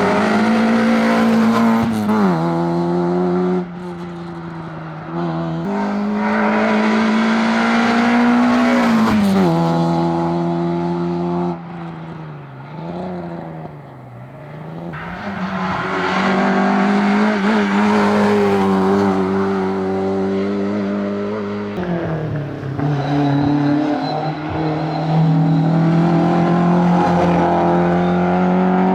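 Rally car engine running hard at high revs on a tarmac stage, with quick gear changes and lifts off the throttle. About halfway through it drops for a few seconds to a lower, wavering note as it slows for a corner, then pulls hard again.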